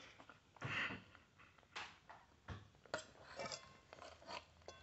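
Faint eating sounds: soft chewing and a few light clicks of a metal fork against a plate.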